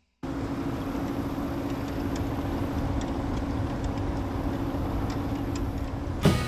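Farm machinery running steadily with a low engine hum and faint scattered ticks, and one sharp knock near the end.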